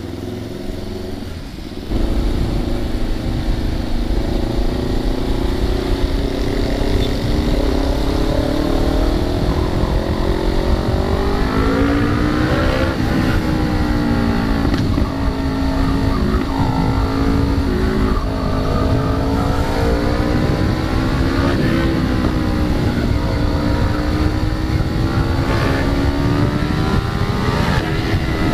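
Kawasaki Ninja 650's parallel-twin engine running on the road, its pitch rising and falling again and again as the throttle is opened and closed, over a loud low rumble.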